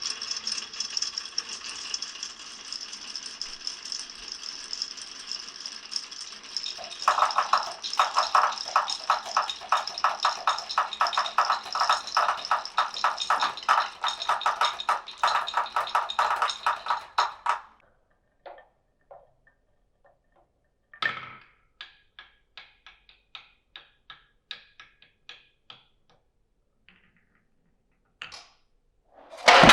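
Marbles rolling and clattering down a wooden marble run: a steady rattle that grows louder, with fast repeating clicks, about seven seconds in, then stops abruptly a little before halfway. After that come only sparse light clicks and taps.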